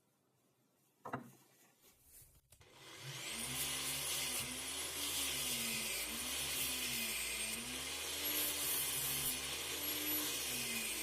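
Electric jigsaw motor starting up about three seconds in and cutting wood, its pitch dipping and rising about once a second as the blade takes load. Before it starts there is a single click.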